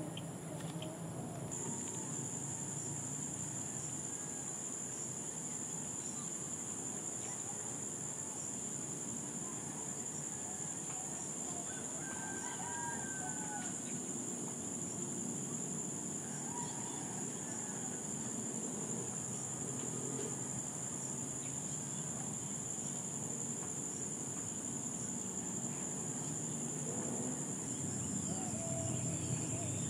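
Steady high-pitched insect drone, with a second, higher tone that stops about a second and a half in, over low background noise. A rooster crows faintly in the distance now and then.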